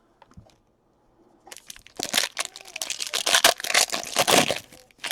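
Trading-card pack wrapper crinkling and crackling as it is handled and crumpled. The crinkling starts about a second and a half in, after a near-quiet start.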